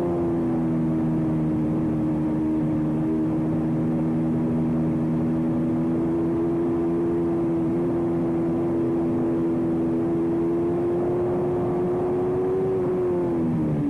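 Racing motorcycle engine at high revs, heard on board. It holds a near-steady pitch, creeping up slightly, then falls away quickly near the end.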